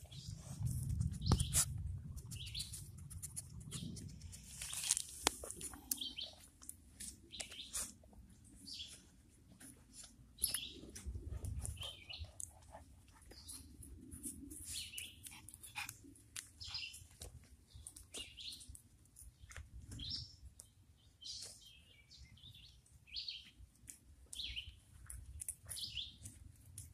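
Small birds chirping repeatedly in short calls, with a few brief low rumbles on the microphone.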